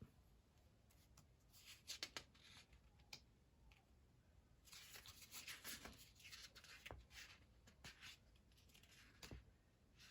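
Faint rustling and soft taps of sticker-book pages and sticker sheets being leafed through and handled, with a longer stretch of rustling from about five seconds in.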